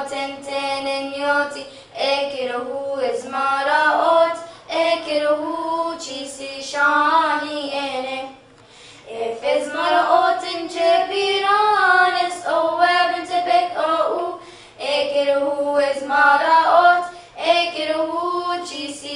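Two young girls singing a Coptic church hymn together, unaccompanied and in unison, with long held and ornamented notes. They break briefly between phrases about eight seconds in and again near fifteen seconds.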